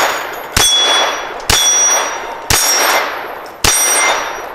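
Ruger LCP II .22 LR pistol firing Winchester M22 rounds at an AR500 steel target, four shots about a second apart. Each shot is followed by a ringing clang from the steel plate that fades before the next. The rounds are cycling without a jam.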